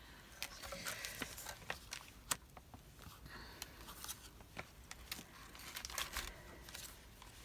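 Paper cutouts rustling and crinkling as they are handled and sorted, with many light taps and clicks.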